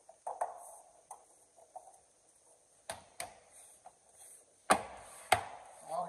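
Plastic inner door trim panel of a 2007–13 Chevy Silverado being pressed and smacked onto the door to seat its retaining pegs and clips. A few light knocks, then sharp knocks, the loudest two near the end about half a second apart.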